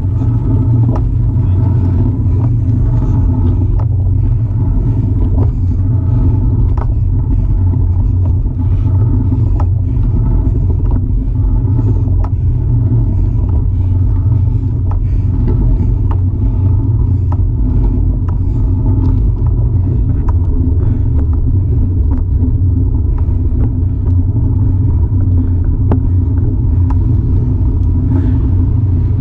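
Steady low rumble of wind and road noise from riding a Cinelli Pista fixed-gear bicycle, with faint ticks about once a second.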